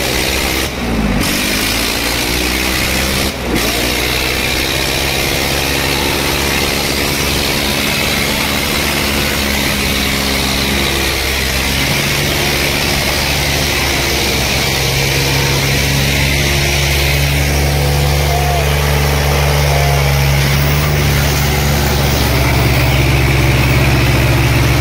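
Diesel tractor engines running, revs falling away twice in the first few seconds, then settling into a steady low drone that grows a little louder later on.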